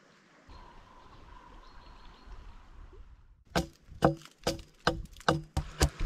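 Knife strokes cutting bark off a pine log: a run of sharp knocks, about two to three a second, starting about three and a half seconds in, as the log is debarked with a knife for want of a drawknife.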